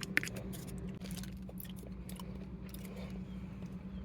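A person chewing a mouthful of beef noodles close to the microphone: soft, scattered little clicks over a steady low hum.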